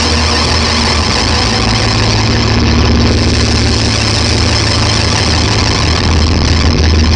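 Electric guitar run through a chain of effects pedals, fuzz included, giving a loud, dense wall of fuzzed noise over a steady low drone.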